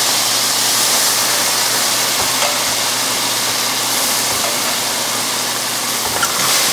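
Wet, freshly boiled spaghetti sizzling in hot rendered guanciale fat in a stainless steel pan, a steady hiss.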